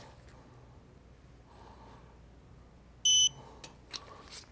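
Digital torque wrench giving one short, high-pitched electronic beep about three seconds in, the signal that the brake caliper guide pin bolt has reached its 30 N·m target torque. A few faint clicks follow.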